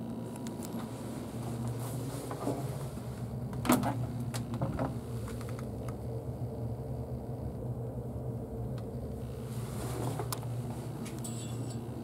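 Steady low hum, with one sharp knock just under four seconds in and a few lighter clicks after it.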